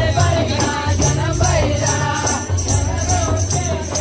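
Nagpuri folk song playing loud: a singing voice over a steady drum beat.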